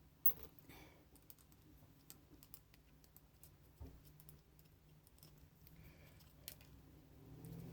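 Faint, scattered clicks and light taps of small plastic and metal parts being handled while an old two-prong electrical plug is worked apart by hand, with one sharper tap just after the start.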